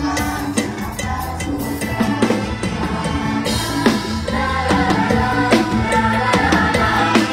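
Mor lam band music, with a drum kit keeping a steady beat under the melody instruments.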